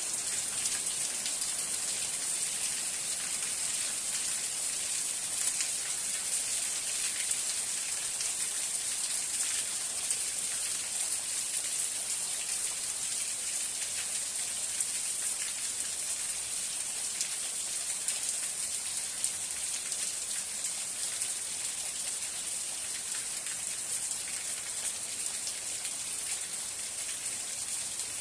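Steady rain falling, a dense even hiss of drops with many fine patters of raindrops striking a surface.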